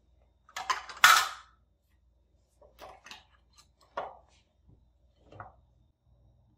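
Red plastic measuring cups clattering as they are set down on a granite countertop, then a few quieter taps and knocks as kitchen utensils are handled.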